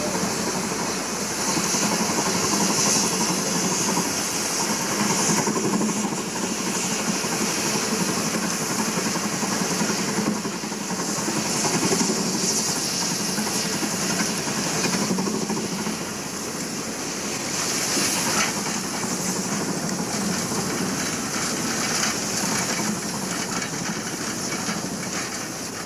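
Rhaetian Railway steam rotary snowplough cutting through deep snow: its spinning rotor churns and hurls the snow in a steady, dense noise.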